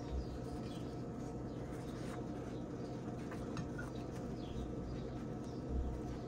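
Flour tortilla folded and pressed by hand on a wooden board: soft rustling and faint scratchy clicks of fingers on the wrap, over a steady low background hum.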